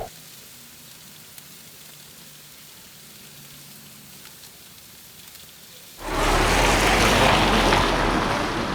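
Quiet background hiss, then about six seconds in a loud, steady rushing noise cuts in suddenly and holds, easing slightly near the end.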